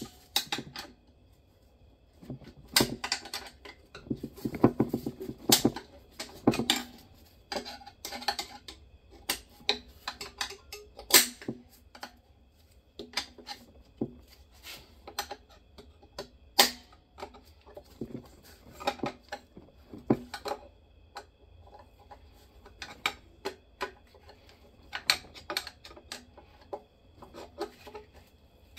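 Irregular metallic clicks, clinks and knocks of parts being handled and pried inside a GM 4L80E automatic transmission case during teardown, with a few louder clanks along the way.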